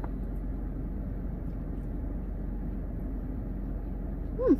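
Steady low rumble of a car running, heard inside its cabin. Near the end a person gives a short falling 'mm' while chewing.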